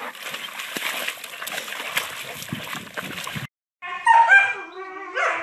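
A dog rolling in wet mud, with steady sloshing and many small splashes. It cuts off suddenly about three and a half seconds in, and after a moment's silence a dog whimpers and yelps in high, wavering cries.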